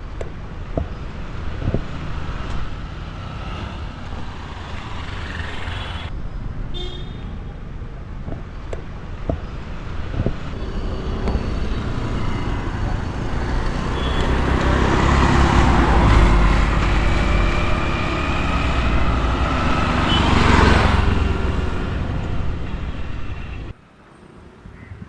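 Road traffic: motor vehicles running past close by, louder through the middle as a vehicle passes, with the sound dropping off suddenly near the end.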